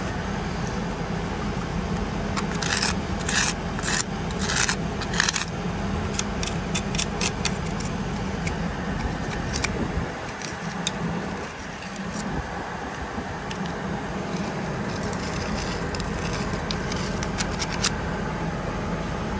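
Metal scraping and clinking, a quick run of strokes a few seconds in and scattered clicks later, over a steady low engine drone.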